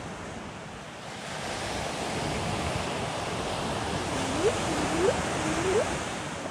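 Ocean surf washing on the shore, swelling from about a second in, with wind on the microphone. Three short rising calls cut through near the end.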